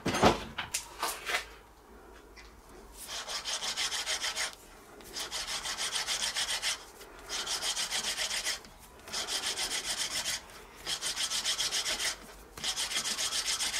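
A small bronze valve being lapped onto its seat in the valve body, turned back and forth by its slot: a gritty rubbing in quick strokes, in runs of about a second and a half with short pauses between. A few knocks come first, in the opening second or so.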